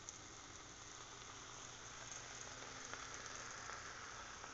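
Breaded pork chops faintly sizzling on an electric indoor grill: a steady hiss with a few small pops.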